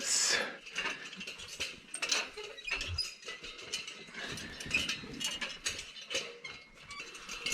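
A run of irregular small metallic clinks, knocks and scrapes: a person climbing down a rickety iron ladder into a cave.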